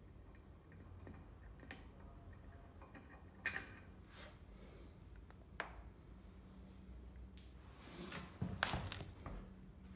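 Lug wrench clinking against the bolts and steel wheel of a 1970 Fiat 500 L as the wheel bolts are unscrewed: a few sharp metal clicks, then a louder clatter of metal near the end.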